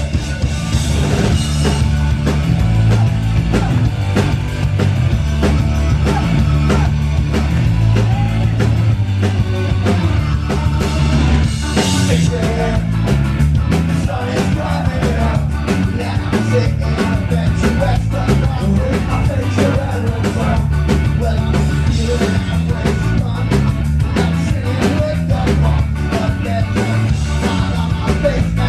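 Live band playing loud: electric guitar, drums and a heavy bass line, with a singer's voice over them. It is heard from within the audience, so the low end is boomy and dominates.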